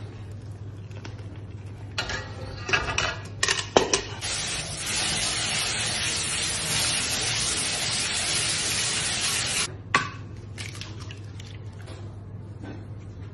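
Metal sieve and steel bowl clattering with a few knocks, then a kitchen tap running a steady stream of water into a metal mesh sieve for about five seconds. The water cuts off suddenly and is followed by one more knock.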